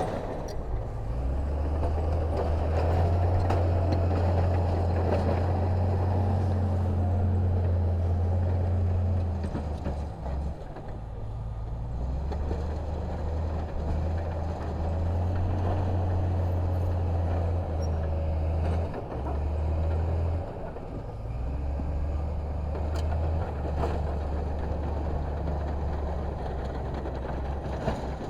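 Heavy diesel earthmoving machinery running under load, a deep steady engine drone. It eases off about ten seconds in and briefly again near twenty seconds, then picks back up.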